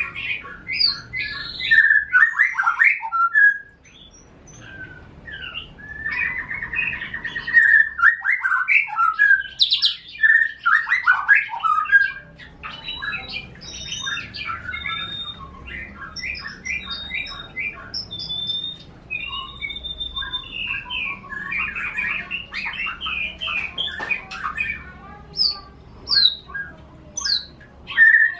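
Caged songbirds, a canary kept as song master and a white-rumped shama, singing a varied run of quick chirps, trills and clear whistled notes, with a buzzy trill about six seconds in.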